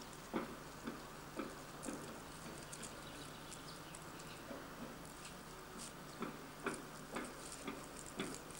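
Loose gravel crunching and scuffing in irregular, sharp steps, faint against a steady low camcorder hum.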